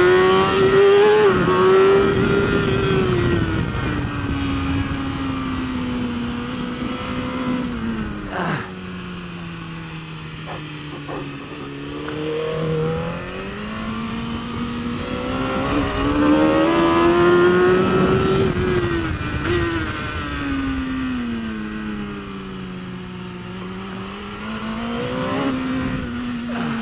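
BMW S1000RR superbike's inline-four engine at race pace: the revs are high at first, fall away and hold low for several seconds, climb again to a peak about two-thirds through, then drop once more. A steady rush of wind and road noise runs underneath.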